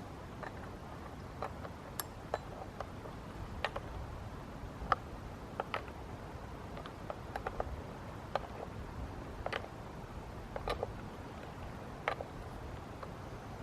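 Irregular light clicks and taps from the chainsaw being handled and reassembled after twine was cleared from its sprocket, about one click a second at uneven spacing; the saw's engine is not running.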